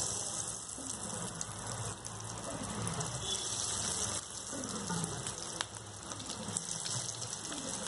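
Hot oil sizzling steadily around breadcrumb-coated potato bites as they deep-fry in a pan, while more pieces are slipped into the oil.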